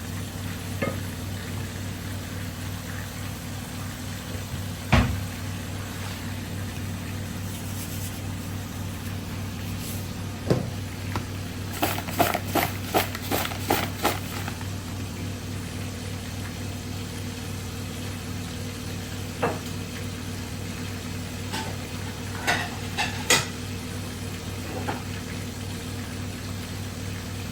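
Chicken drumsticks sizzling as they fry in a pan of oil, over a steady low hum. A utensil clinks and scrapes against the pan now and then, with a quick run of clinks about halfway through.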